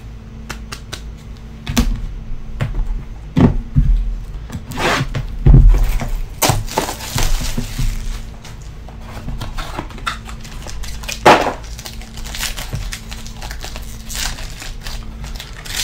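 A trading-card box is handled on a table with a few sharp knocks and taps, and its wrapping and a foil pack crinkle as they are torn open.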